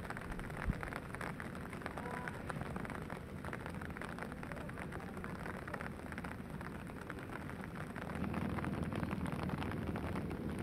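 Rain falling on pond water and grass: a steady, even patter of many small drops. A low rumble grows louder near the end.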